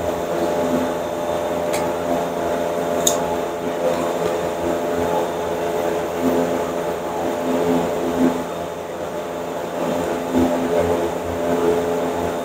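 Steady mechanical hum made of several fixed tones, with two light clicks in the first few seconds.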